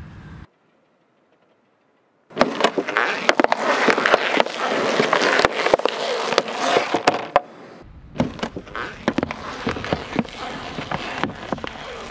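Thin plastic containers cracking under a slowly rolling car tyre. After a short silent gap, there are about five seconds of dense crackling and sharp snaps as the plastic splits and flattens, then quieter crackling and snapping.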